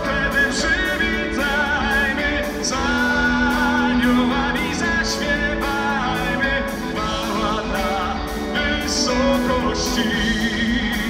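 Live rock band playing a Christmas carol, electric guitars and drums under a male singer holding long, wavering notes without clear words.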